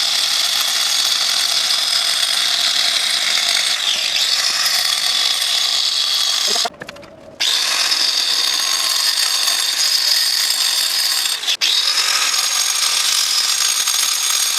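Angle grinder running under load, a steady loud whine. It cuts out for about half a second around seven seconds in and starts again, with a brief dip near the end.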